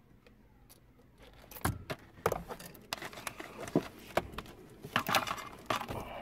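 Rustling with scattered sharp clicks and knocks as wiring and plastic dash parts are handled, starting about a second and a half in.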